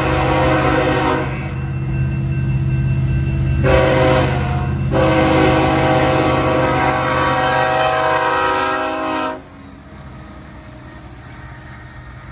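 Union Pacific SD70ACE locomotive's air horn sounding the grade-crossing signal: a blast ends about a second in, then after a pause comes a short blast and a long one that cuts off suddenly about nine seconds in. After the horn stops, the train's steady rumble goes on as it passes.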